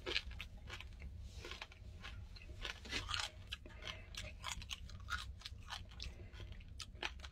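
A person chewing a scorpion with the mouth closed: its hard shell cracks in a run of faint, irregular crunches, like chewing a crab shell.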